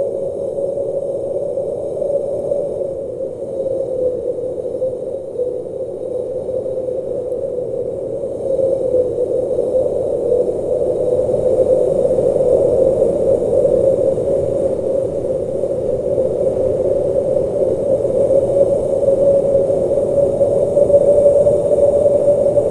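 Howling polar wind: a continuous hollow howl on one slowly wavering pitch over a rushing hiss, growing a little louder about eight seconds in.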